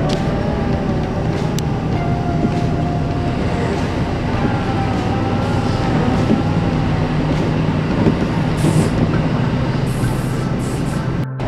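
Kintetsu Osaka Line rapid express train running at speed, heard from inside a car: a steady rumble of wheels on rail with a faint wavering whine over it. The sound drops out for an instant near the end.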